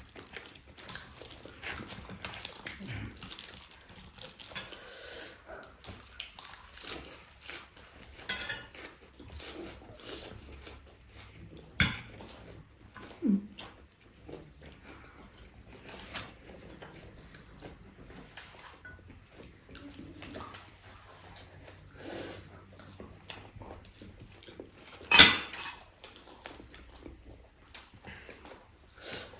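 Mouth sounds of chewing food, with scattered clicks of cutlery against plates. A sharp clack about twelve seconds in, and the loudest one about twenty-five seconds in.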